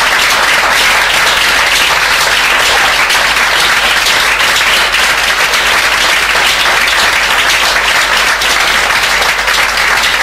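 An audience applauding, loud, steady clapping from many hands.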